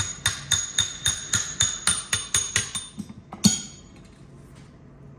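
Ball peen hammer striking a brass drift punch about four times a second, with a metallic ring, driving a tight counter shaft out of a Muncie M21 four-speed transmission case. The rapid strikes end with one harder blow about three and a half seconds in.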